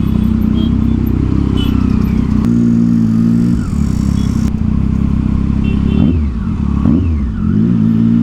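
Triumph Street Triple 675's inline three-cylinder engine, breathing through an aftermarket Yoshimura exhaust, running at low revs in slow traffic. It gives a few quick throttle blips, each rising and falling in pitch, in the last couple of seconds.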